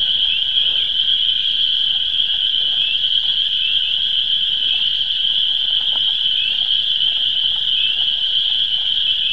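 Dense spring chorus of frogs calling from a swamp, a steady high-pitched ringing made of many short rising calls. These are frogs newly emerged from winter hibernation in the mud after the thaw.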